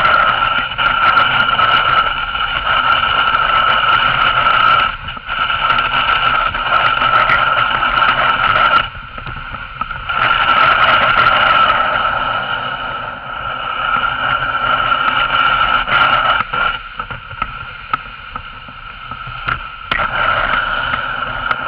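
Dogsled runners sliding over snow: a steady scraping hiss carrying a high, steady squealing note, which dips away briefly about five, nine and sixteen seconds in.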